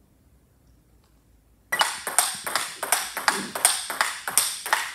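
Table tennis rally: the ball clicks sharply off the table and the paddles about four times a second. It starts abruptly about a second and a half in, after near silence.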